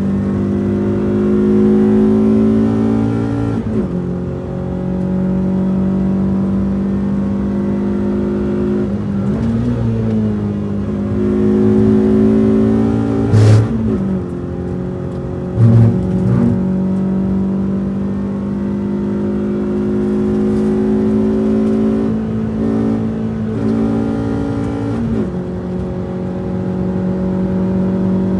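Onboard sound of a Renault Twingo RS's 1.6-litre four-cylinder engine driven hard on track, revving up through the gears. Its pitch climbs under acceleration and drops sharply at each shift or lift, several times over. Two short, loud knocks come about halfway through.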